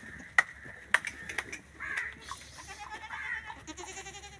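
Young goat kids bleating, several short calls overlapping in the second half. Two sharp clicks, about half a second and a second in, are the loudest sounds.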